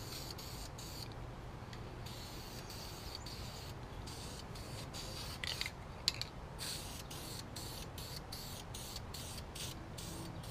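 Aerosol rattle can spraying wrinkle paint, hissing in quick repeated bursts with short breaks between them and a longer pause about a second in. A sharp click sounds about six seconds in.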